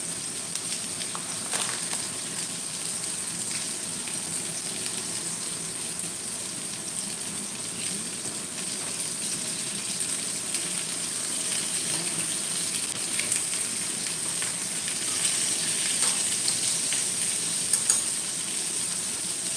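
Chicken drumsticks sizzling in hot oil in a stainless steel pan with garlic, chili and spring onion, a steady hiss with scattered crackles as the chicken is browned. A few sharper clicks come from tongs turning the pieces in the pan.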